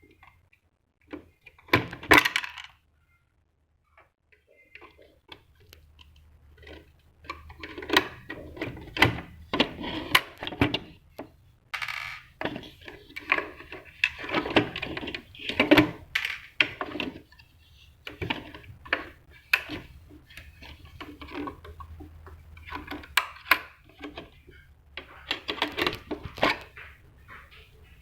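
Irregular clicks, knocks and rattles of plastic and metal parts being handled and taken apart on a Gprinter GP-80300II thermal receipt printer, with a faint low hum underneath from about five seconds in.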